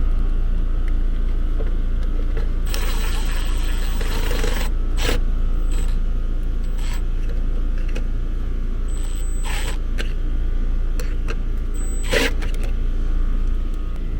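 Handling noises of a start-capacitor relay kit being wired and fitted back into an air-conditioner condenser: a stretch of rustling and a handful of short clicks and clacks as parts and wire connectors are pushed into place, over a steady low rumble.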